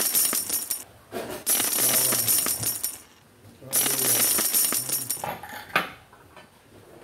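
Metal ladle scraping and clattering across a wooden cutting board in three spells of about a second and a half each, pushing sliced shallots, garlic and ginger off into the pot, followed by one sharp knock as the ladle is set down on the board.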